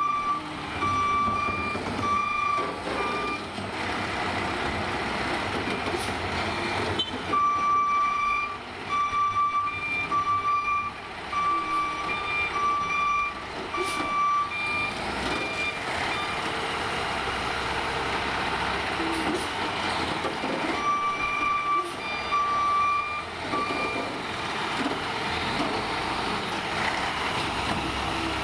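Peterbilt McNeilus ZR automated side-loader garbage truck running, with its beeping alarm sounding about once a second in three spells. The longest spell comes in the middle, and there are a couple of sharp knocks along the way.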